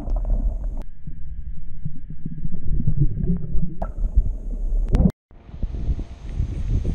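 Muffled underwater rumble and gurgling of pond water heard with the microphone submerged, mostly low-pitched. It cuts out just after five seconds and gives way to plain outdoor wind and handling noise above water.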